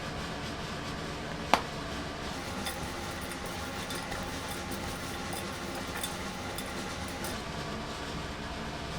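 A steady mechanical hum, like a running fan, with one sharp click about one and a half seconds in and a few faint light ticks after it.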